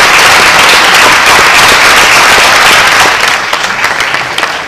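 Theatre audience applauding, a dense steady clapping that begins to die down about three seconds in, thinning to scattered claps.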